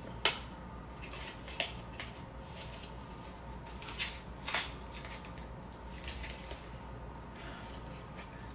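Plastic-and-card retail packaging being pried open by hand: small crackles with a few sharp snaps, the loudest just after the start, another about a second and a half in, and two more around four seconds in. The package is hard to open.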